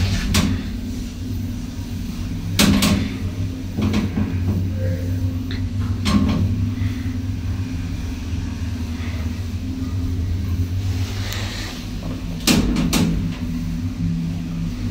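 Otis elevator with a ReGen drive travelling upward: a steady low hum heard inside the moving car, with a few short sharp clicks along the way.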